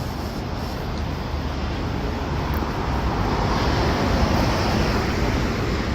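Street traffic noise with a vehicle passing close, swelling to its loudest past the middle and easing off near the end.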